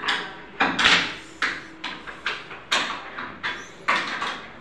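A run of sharp wooden knocks and clatters, about two a second at uneven spacing, each dying away quickly, from the plywood lift-up storage bed's lid and frame being handled.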